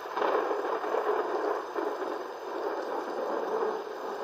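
Steady rushing of rain and running water in a storm, loudest in the first second or two and easing a little after.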